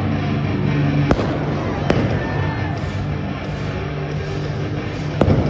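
Arena pyrotechnics going off with three sharp bangs: about a second in, just under a second later, and near the end. Loud music with a steady bass plays underneath.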